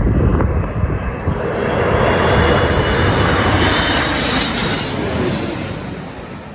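Jet airliner passing low overhead on final approach to land: engine roar with a high whine swells to a peak about two to three seconds in, then fades away.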